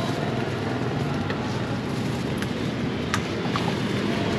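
Steady drone of passing motorbike and street traffic, with four light clinks of bowls and utensils scattered through it.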